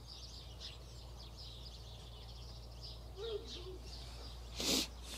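Small birds chirping faintly in the background over a faint steady low hum, with a brief rustling noise near the end.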